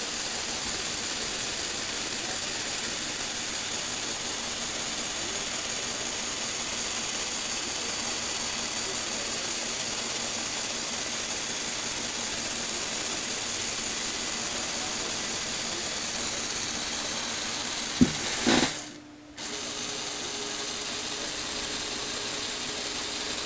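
Lego Technic electric motor and gear train running steadily as it turns and tilts a model-car display stand. Near the end it clicks and stops for about a second, then runs again with a steadier hum.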